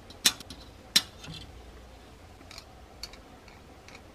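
Sprue cutters snipping a plastic model-kit part off its sprue: two sharp snaps a little under a second apart, followed by a few faint ticks of plastic being handled.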